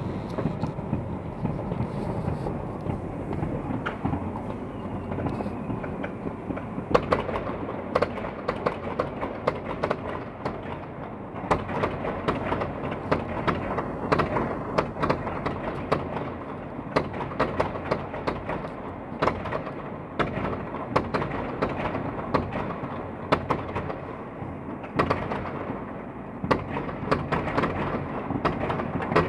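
Fireworks and firecrackers going off all around at once: a dense crackle of sharp bangs, several a second, over a continuous din of more distant bursts, with one especially loud bang about seven seconds in.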